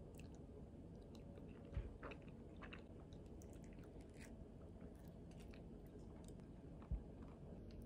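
Faint close-up eating sounds: a metal spoon clicking and scraping in a glass container of creamy yogurt with soft fruit, with soft chewing. Two dull knocks stand out, one about two seconds in and one near the end.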